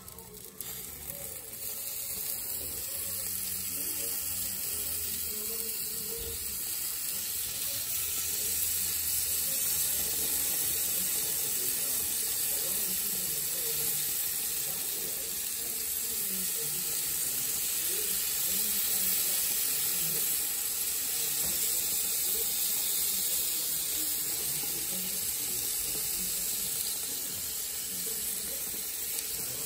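Half chickens sizzling on the grates of a Weber Q gas grill over open flames: a steady hiss.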